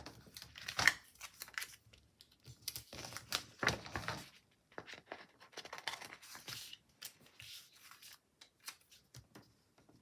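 Paper stickers being peeled off their sheets and handled: a run of short rips, rustles and light taps, busiest in the first half and sparser later.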